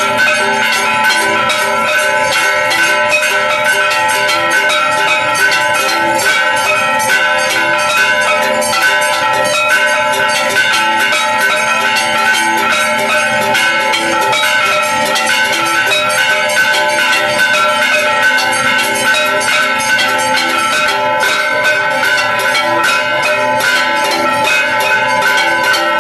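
Bells ringing continuously, struck rapidly and overlapping, with several ringing pitches sounding at once and an even loudness throughout.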